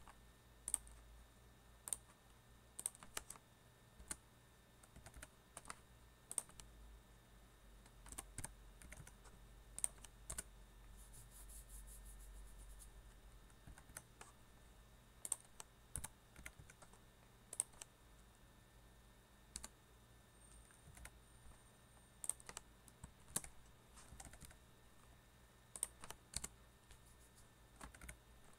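Computer keyboard typing in irregular keystrokes, with a quick run of keys about eleven seconds in.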